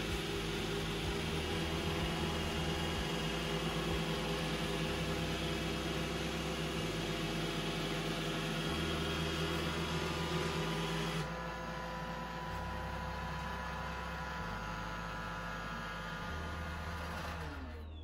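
An iRobot Roomba i7 robot vacuum's motors run with a steady whirr and hum as it drives across a tile floor back to its charging base. The sound drops a little about eleven seconds in and stops near the end as the robot docks.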